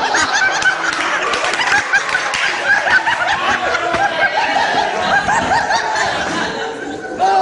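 A roomful of young men laughing hard together, many voices cackling at once, at a classmate's breakdance gone wrong.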